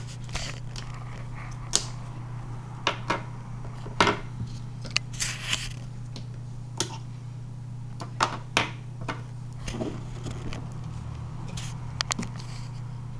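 Small doll figurines being pulled off their stands and set down on a wooden desk: irregular light clicks and knocks with a few brief rubbing sounds.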